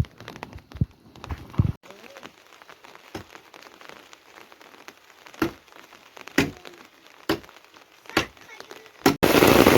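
Sharp knocks or drips, the later ones about once a second, over a quiet background; about nine seconds in, the sound jumps abruptly to loud, steady heavy rain.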